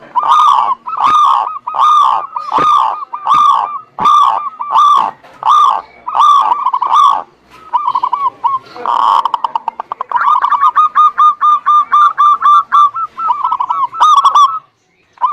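Zebra doves (perkutut) cooing: a series of arched notes about two a second, then, after a short pause, a quicker run of short cooing notes that stops shortly before the end.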